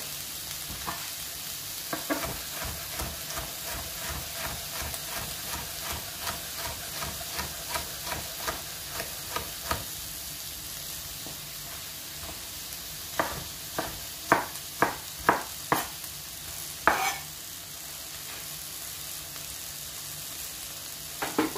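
Chef's knife slicing a red bell pepper into strips on a wooden cutting board: a run of light, even taps, then several louder chops in quick succession about two thirds of the way in. Underneath, the steady sizzle of mushrooms frying in a pan.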